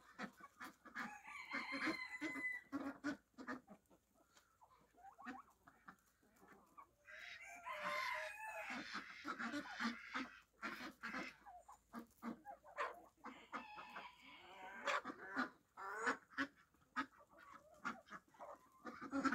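Backyard chickens clucking, with a rooster crowing once about seven seconds in.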